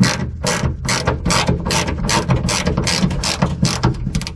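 Hand ratchet wrench clicking in quick repeated strokes, about three a second, running a nut down onto a chrome trim piece's stud.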